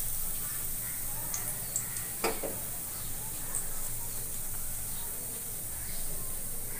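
Hot frying oil in a steel kadhai sizzling faintly and steadily while fried potato cutlets drain in a wire skimmer above it, with one short sharp sound about two seconds in.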